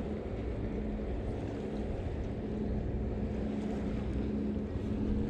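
Steady low motor hum with a low rumble of wind on the microphone.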